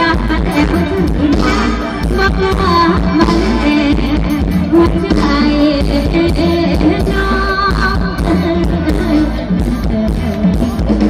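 Live band playing an Isan luk thung song with a steady beat and electric guitar, with a woman's singing over it.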